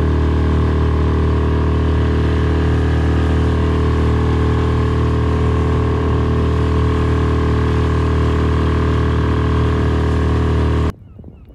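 Yamaha 6 hp outboard motor running at a steady speed under way, pushing the inflatable boat. It stops abruptly near the end.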